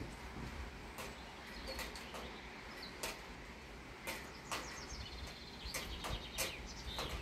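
Steady rain falling, with sharp ticks scattered irregularly through it and a few short, high bird-like chirps.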